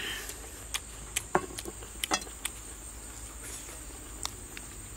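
Insects droning steadily at a high pitch, with a handful of sharp clicks and taps; the loudest come about a second and a half and two seconds in.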